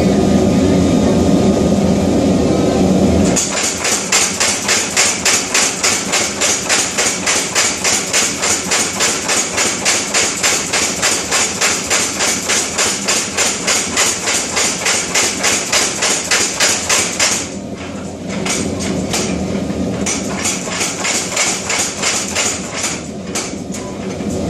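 Power hammer working hot steel, about three to four blows a second, with lighter, irregular blows in the last several seconds. A loud steady roar fills the first three seconds or so before the hammering starts.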